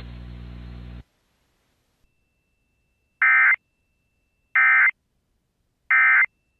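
Emergency Alert System end-of-message code: three identical short bursts of data tones, each about a third of a second long and a second apart, marking the end of the warning. Before them, about a second of hissy background cuts off abruptly.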